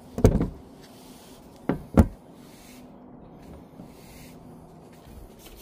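Three hard knocks from things being handled on a plastic work table: one just after the start, then a quick pair about two seconds in.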